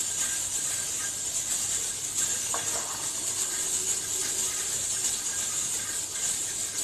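Steady high-pitched hiss, with a faint click about two and a half seconds in.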